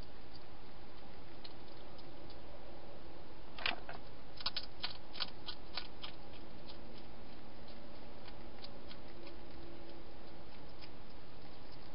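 A hedgehog crunching dry food inside a plastic feeding box: scattered crisp clicks, thickest from about four to six seconds in, over a steady hiss.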